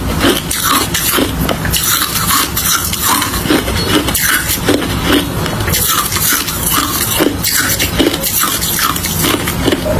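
Hard ice being chewed close to the microphone: a loud, continuous run of sharp crunches and cracks.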